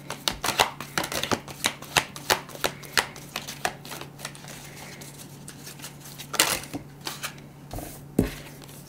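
A deck of tarot cards being shuffled by hand: a quick run of card slaps about three a second, then two longer rustles near the end.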